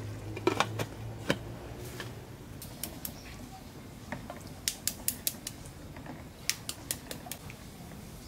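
Sharp clicks and crackles of boiled duck eggshells being cracked and peeled by hand, coming in quick clusters.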